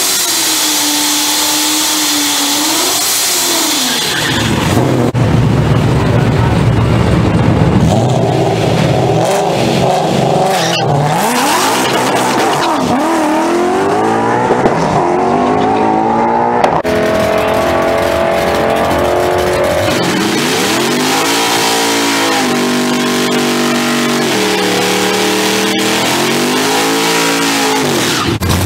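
Drag-racing Ford Mustang's engine revving at the starting line, then launching hard about four seconds in and pulling through its gears, the pitch rising and dropping at each shift as it runs away. Partway through, a Chevrolet pickup truck's engine takes over, revved up and down repeatedly during a burnout.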